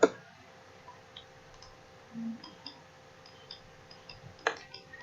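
Computer mouse clicks: one sharp click at the start and another about four and a half seconds in, with a few faint ticks between.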